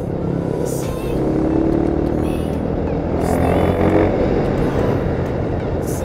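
Honda Tiger's single-cylinder four-stroke engine pulling on the road, climbing in pitch as it accelerates between about one and four seconds in, with wind and road rush over the helmet camera.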